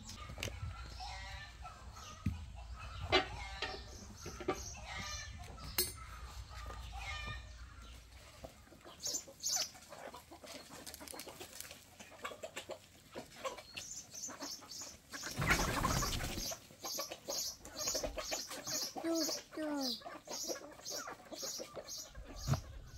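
Chickens clucking, with other short bird calls and, about two-thirds through, a brief loud rustle.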